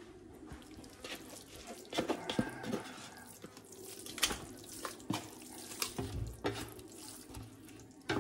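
Spatula scraping moist cooked minced meat out of an enamelled steel pan into a bowl, a run of soft scrapes and squelches broken by frequent light knocks of the spatula against the pan's rim.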